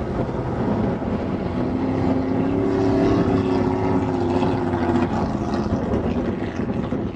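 Engine of a wooden racing powerboat running flat out as the boat passes at speed: a steady drone that grows loudest around the middle and eases toward the end, over the rushing hiss of water and spray.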